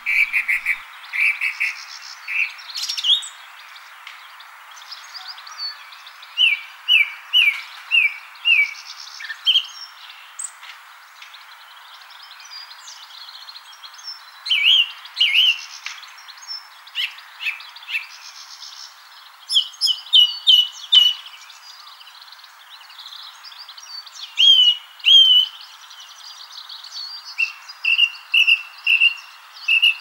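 Song thrush singing: loud, clear, high-pitched phrases, each short note repeated several times in quick succession before it moves on to a new phrase, with short pauses between groups. A steady hiss runs underneath.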